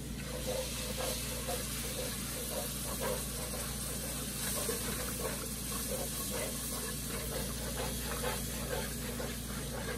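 Heavy cream poured into a hot browned butter-and-flour roux in a pot, sizzling and hissing steadily as it hits the hot roux and steams.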